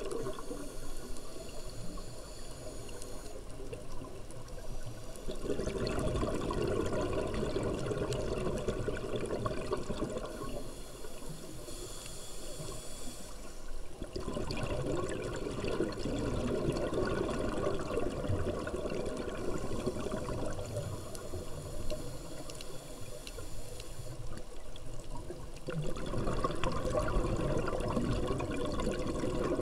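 Scuba diver breathing through a regulator underwater: a hissing inhale, then a long stretch of bubbling exhaust. This happens three times, slowly.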